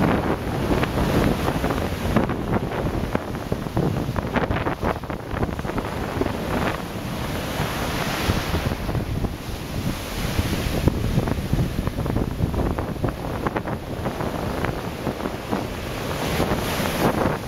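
Ocean surf breaking and washing up the beach close by, with heavy wind buffeting the microphone. The hiss of the wash swells loudest about halfway through.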